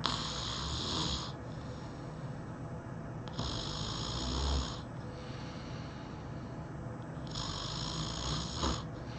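A person snoring heavily: three loud snores about four seconds apart, each lasting over a second.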